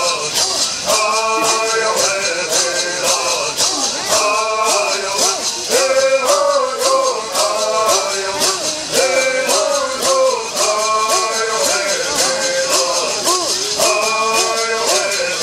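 Bird singing: a group of men singing a bird song in repeating phrases over the steady, quick shake of gourd rattles.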